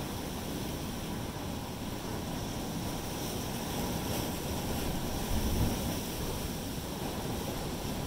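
Ocean surf surging through a narrow rock channel: a steady rush of churning, foaming water that swells slightly about five and a half seconds in.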